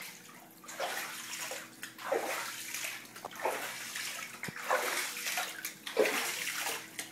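Water sloshing and splashing in irregular bursts in a flooded basement a few inches deep, over a steady low motor hum.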